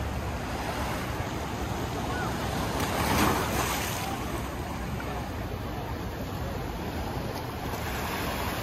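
Gentle ocean surf washing onto the sand at the water's edge, a steady rush with one louder wave about three seconds in.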